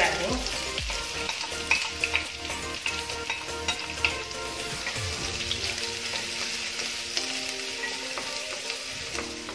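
Chopped onions sizzling in hot oil with frying garlic in a wok, stirred with a wooden spatula that clicks and scrapes against the pan.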